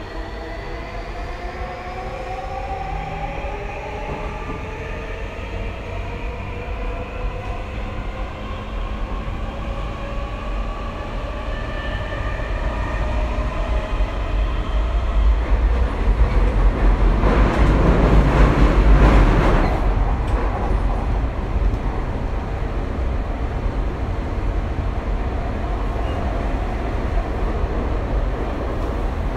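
Tokyu 2020 series electric train heard from inside while accelerating. The traction motors whine in several tones that rise steadily in pitch over the first dozen or so seconds, over a low rumble of wheels on rail. About 16 seconds in, a loud rushing noise swells, peaks a few seconds later, then eases back to steady running.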